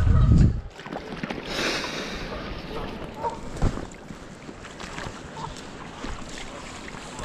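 Wind buffeting the microphone, strongest in the first half-second, over the steady rush of creek water, with a brief hiss about a second and a half in.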